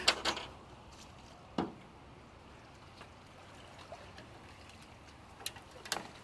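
Aluminum canoe being paddled through reeds and branches: water splashing and trickling off the paddle, with several sharp knocks, a cluster at the start, one about a second and a half in and two near the end.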